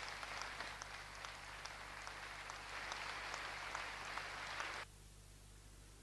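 Audience applauding, many hands clapping together, cut off suddenly nearly five seconds in.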